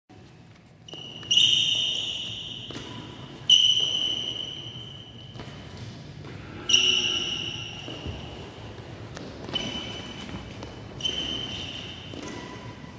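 Badminton drill hits: five sharp strikes, one every two to three seconds, each followed by a high ringing tone that fades over a second or two.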